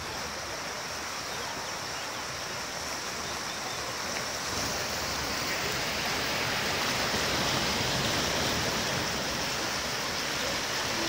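The River Cher in flood, with fast brown water rushing and churning past the piers of a stone bridge. It is a steady rushing noise that grows a little louder about four seconds in.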